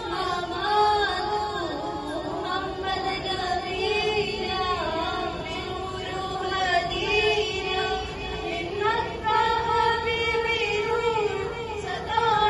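Girls' voices singing a naat, a devotional song in praise of the Prophet Muhammad, together into microphones.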